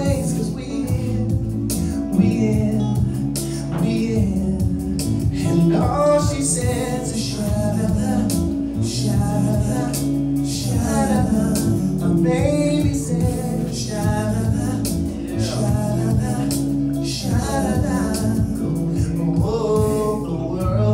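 Male R&B singer singing live into a microphone over instrumental backing, a soulful melody with gliding runs above steady low accompaniment notes.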